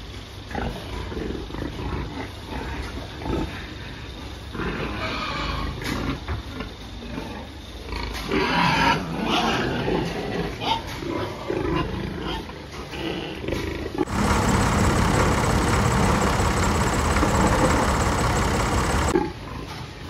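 Pigs grunting and squealing in a pen as a boar moves among the sows. About 14 s in, a loud, harsh, continuous noise takes over for about five seconds, then stops suddenly.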